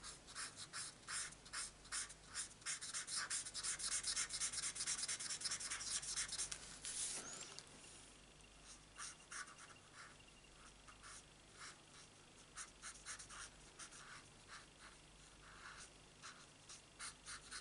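Marker tip rasping on card stock while colouring in a stamped image with short back-and-forth strokes. Quick, dense strokes for about the first seven seconds, then slower, sparser and fainter ones.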